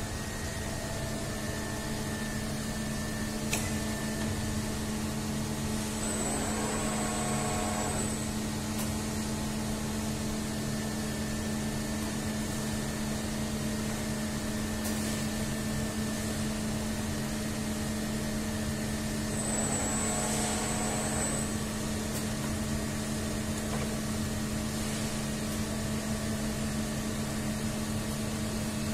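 Neway PM30120MS gantry machining center running with a steady electrical hum. It briefly whirs louder with a thin high whine twice, about six and about twenty seconds in. A single sharp click comes a few seconds in.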